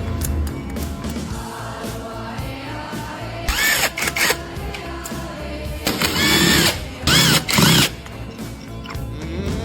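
Background music, with a power tool run in three short bursts whose pitch rises and falls, near the middle and in the second half.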